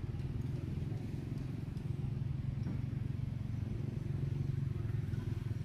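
A steady low engine hum, like an idling motor vehicle.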